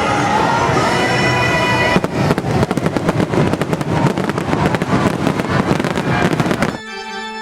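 Fireworks crackling in rapid, dense pops over loud show music, the crackle thickening about two seconds in. Near the end it cuts suddenly to sustained organ chords.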